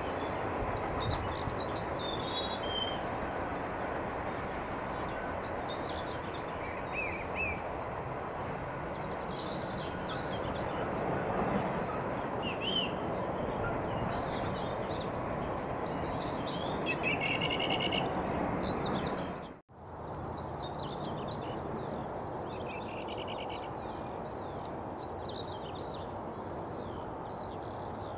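Small birds chirping and singing over a steady background rumble, with the sound dropping out for an instant about two-thirds of the way through.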